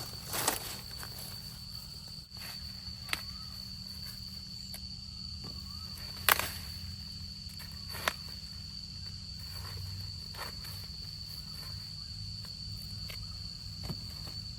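Corn ears being snapped off the stalks by hand, with leaf rustling and footsteps in the cornfield: scattered sharp snaps, the loudest about six seconds in. A steady high-pitched tone runs underneath.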